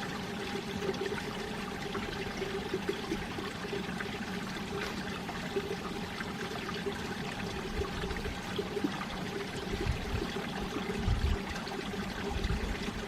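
Mountain valley stream running steadily, water rushing and trickling over rocks, with a few low rumbling bumps about ten seconds in.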